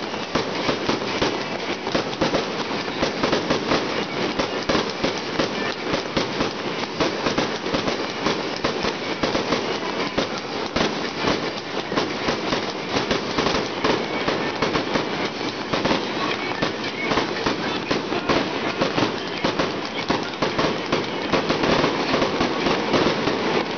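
A fireworks display going off without pause: dense, rapid crackling and popping, louder again near the end.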